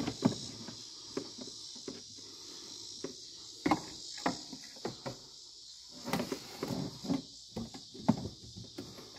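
Scattered knocks, clicks and rubbing as a clear braided vinyl hose is handled and pulled against a wooden cabinet, over a steady high hiss.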